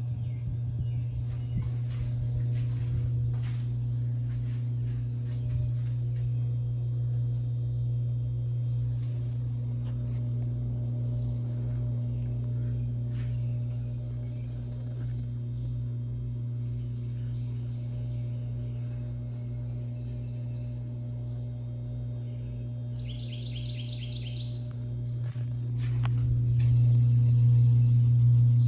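Hunter Castleton ceiling fan motor running with a steady low hum, which grows louder about 26 seconds in. A bird trills briefly about 23 seconds in.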